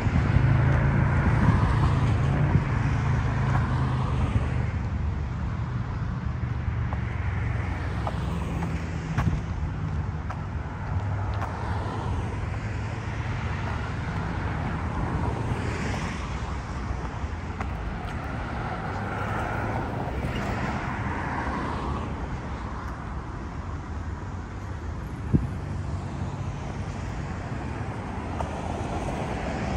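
City street traffic: cars passing on the road with a steady low rumble that swells and fades, loudest in the first few seconds. One sharp click stands out late on.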